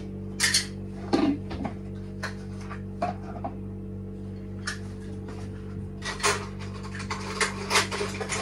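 Dishes, steel bowls and utensils clinking and knocking as they are handled and moved about on a kitchen counter: scattered sharp clinks, busiest near the start and again near the end, over a steady low hum.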